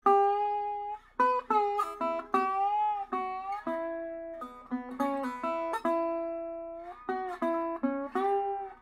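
Solo guitar music: single plucked notes, several bent or slid in pitch, each ringing and fading before the next.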